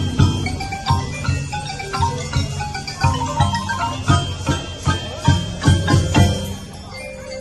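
Symphonic percussion ensemble playing: marimbas, xylophones and glockenspiels over repeated low drum strikes. Near the end the drums drop out, leaving softer held mallet notes.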